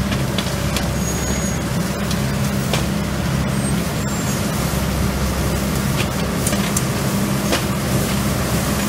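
Leaf vacuum truck's engine and suction blower running at a steady loud drone, with scattered sharp ticks over it.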